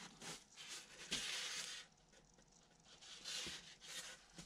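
Foam wing core being handled on a workbench: faint rubbing and scraping of the styrofoam, with a longer rub about a second in and another about three seconds in, and a few light taps.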